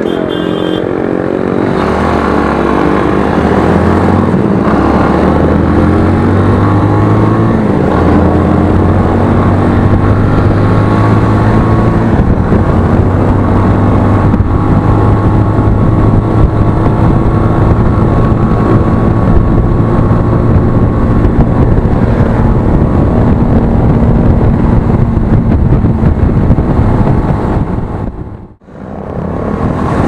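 Motorcycle engine running under way with heavy wind and road noise, its pitch climbing as it accelerates over the first several seconds and then holding steady at cruising speed. The sound drops out briefly near the end.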